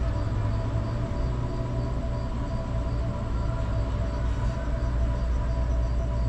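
Car engine idling with a steady low rumble, together with a steady mechanical hum.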